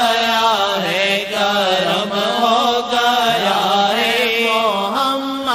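Naat being sung: a solo voice draws out long, ornamented sliding phrases without clear words, over a steady low hummed drone.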